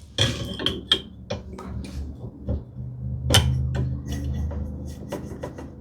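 Metal hand-plane parts and tools handled on a workbench: a string of irregular sharp clinks and taps, with a low steady hum underneath from about three seconds in.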